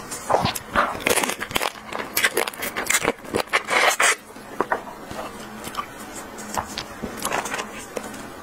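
Close-miked eating of raw soy-marinated crab: wet sucking and slurping of the meat from the shell, with clicks and crackles of the shell. It is busiest in the first half and lighter after about four seconds.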